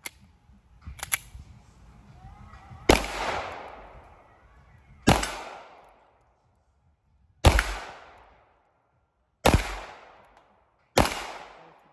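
Handgun fired five times at a slow, deliberate pace, about two seconds between shots, each crack trailing off in echo. Two fainter cracks come about a second in.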